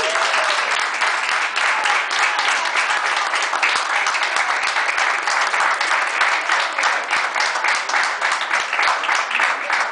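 Small group of people applauding, many hand claps blending into a steady patter.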